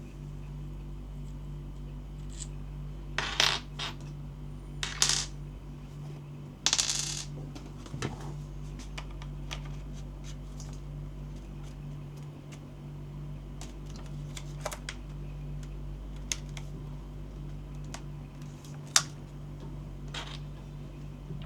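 Scattered small plastic clicks and rattles from a toy gel blaster and its parts being handled, with brief rustles about 3, 5 and 7 seconds in and a sharp click near the end, over a steady low hum.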